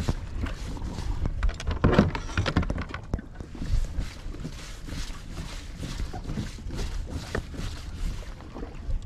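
Irregular knocks and clicks of fishing gear handled aboard a plastic fishing kayak, busiest about two seconds in, over a low rumble of wind on the microphone.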